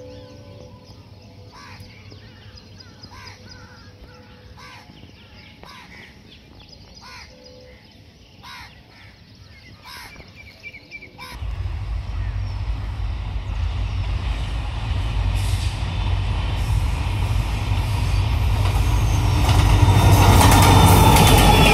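Crows cawing over a quiet background. About eleven seconds in, a deep rumble from an approaching diesel locomotive hauling an express passenger train starts and grows steadily louder, with wheel and rail noise rising near the end as the train draws close.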